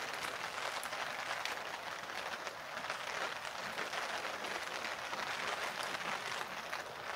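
Steady rain falling, an even hiss with many separate drop hits ticking through it.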